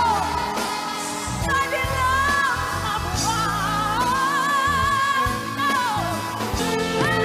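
Coloratura soprano singing live over backing music, holding long notes with vibrato. The longest note starts about four seconds in, lasts nearly two seconds and ends in a downward slide.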